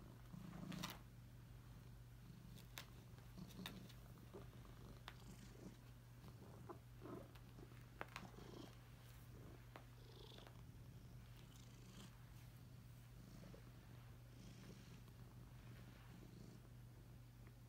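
Domestic cat purring steadily and faintly while rolling on a carpet under the effect of catnip, with scattered soft rustles and clicks as it rubs against the carpet.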